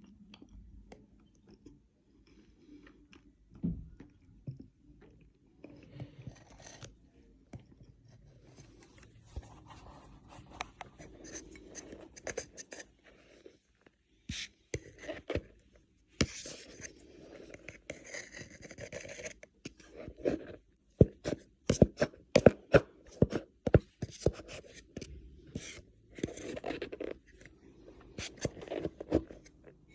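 Cornstarch crunching and squeaking up close: soft scraping and rubbing at first, then, about two-thirds of the way in, a quick run of sharp, loud crunches.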